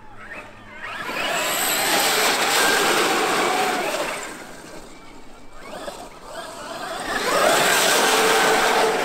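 Traxxas X-Maxx electric RC monster truck making two fast passes through a muddy puddle: the motor's whine and the spray of water swell up and fade away twice, a few seconds each.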